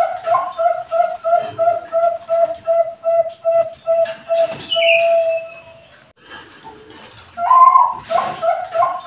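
Zebra dove (perkutut bangkok) cooing: a rapid rhythmic run of low coos, about three a second, ending in one long drawn-out final note about five seconds in. After a short pause a new song starts near the end with a higher opening note.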